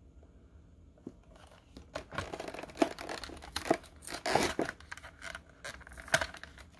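A Hot Wheels car's cardboard-and-plastic blister pack being torn open by hand: plastic crinkling and card ripping in irregular crackles, starting about a second and a half in.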